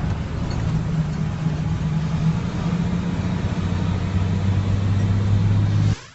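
Truck engine running with a steady low drone; a lower steady note joins about three and a half seconds in, and the sound cuts off abruptly near the end.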